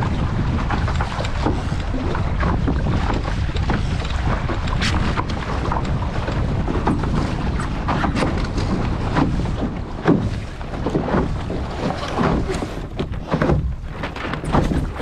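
Wind buffeting the microphone over the sound of a boat under way on the water, with irregular splashes and slaps of water against the hull that get choppier in the second half.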